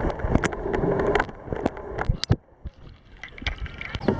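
Water splashing and sloshing close to the waterline as a capsized sea kayak is rolled back upright, with many sharp splashes and a short lull about halfway through.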